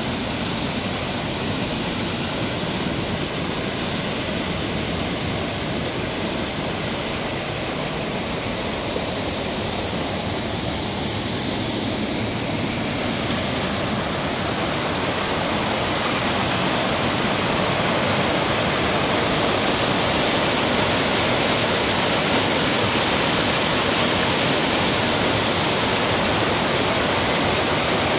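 Rushing water of a mountain stream cascading over boulders in a chain of small waterfalls, a steady even rush that grows louder about two-thirds of the way through.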